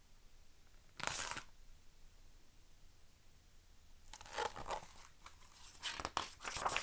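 Paper rustling as the pages of a hardcover picture book are handled and turned. There is a short rustle about a second in, then a longer run of rustling from about four seconds on.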